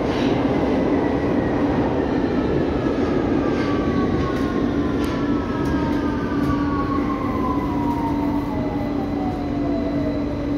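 London Underground 2009 Stock train braking into a station, heard from inside the carriage: the electric traction whine falls steadily in pitch as it slows, over a constant steady hum and wheel and running rumble.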